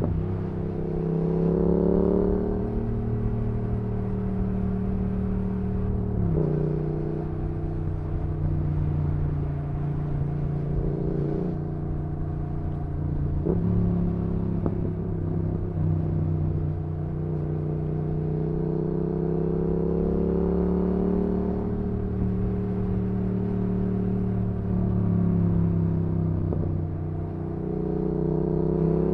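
Yamaha XSR700's parallel-twin engine through an IXRACE MKII aftermarket exhaust while riding: the engine note climbs as the bike pulls, then drops sharply at gear changes, a few times over, with cruising stretches in between.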